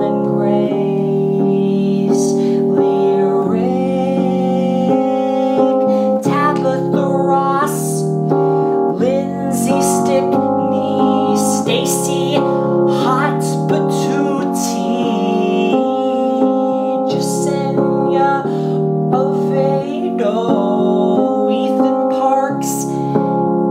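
Chords played on a digital piano, changing every second or two, with a man singing a slow melody over them.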